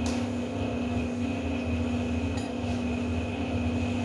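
Steady low mechanical hum with a fixed pitch, like a running motor or fan. Over it come two light clinks of cutlery against dishes, one at the start and one a little past halfway.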